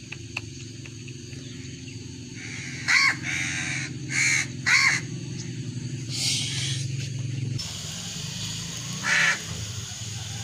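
House crow cawing: three caws in quick succession about three to five seconds in and one more near the end, over a low steady hum.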